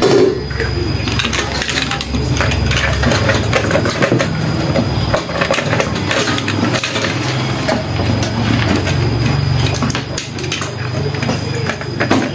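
Rice cooker plastic body parts being handled and fitted back together: the plastic outer shell knocks, scrapes and clicks against the inner housing and wiring in a steady run of small clatters. A low hum runs underneath.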